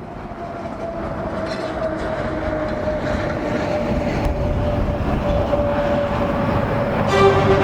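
A steady rumbling noise that fades in and grows louder, carrying a single held tone that slowly sinks in pitch. Bowed-string music comes in near the end.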